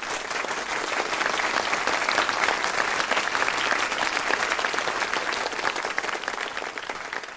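Theatre audience applauding at the end of a song: dense, steady clapping that tapers off slightly near the end.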